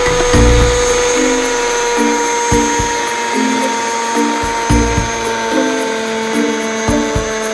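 Radio-controlled model helicopter's smoking glow engine and rotor running with a steady high whine in flight. Background music with a beat plays over it.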